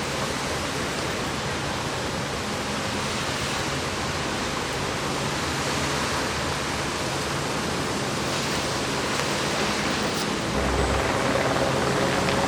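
Steady rushing of floodwater from a broken water main running down a street, with vehicle engines humming underneath. Near the end a low rumble comes in and the rush grows louder.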